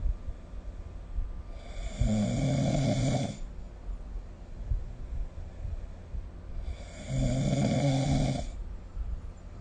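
A sleeping person snoring: two snores, each lasting about a second and a half to two seconds, roughly five seconds apart.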